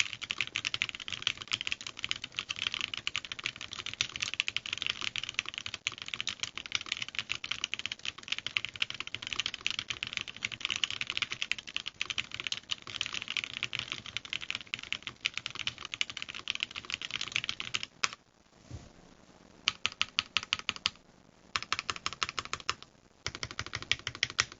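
Fast typing on a KeebsForAll Freebird TKL mechanical keyboard fitted with Gateron KS-9 switches and DMK Kaiju keycaps, running a typing test. The keystrokes come rapid and unbroken for about 18 seconds, stop briefly, then come in three short bursts.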